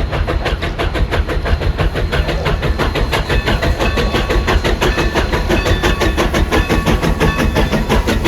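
Santa Maria Valley 205 steam locomotive and its train running past, a rapid even beat of about six strokes a second over a heavy rumble. Short high-pitched tones join in from about three seconds in.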